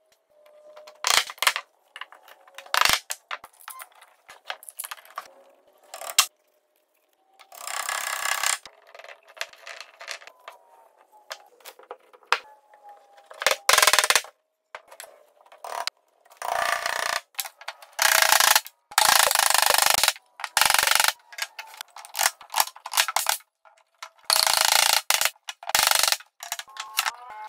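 Mallet knocking on hardwood: a white-headed mallet drives tenons and rails together as a wedged-tenon table base is assembled. The knocks come in short bursts separated by pauses, with handling and scraping of the wood between them.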